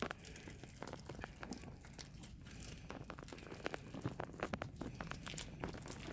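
Faint, scattered crinkling and light crackles, irregular, with no steady rhythm.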